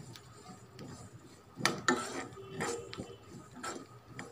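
A metal spatula stirring and scraping whole dry spices (fennel, mustard seeds, cumin) around a kadai, with scattered clicks of metal on the pan. The spices are being dry-roasted to take off their raw taste.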